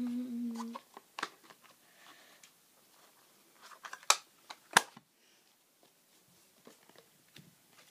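Pokémon trading cards being handled and turned over: light rustling and scattered sharp clicks and snaps of card stock. The two loudest snaps come about four and five seconds in.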